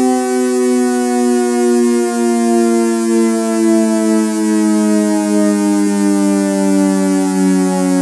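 Synthesized ACA Hurricane siren in its 8/12 port combination with echo: a two-note siren chord held steadily and gliding slowly down in pitch.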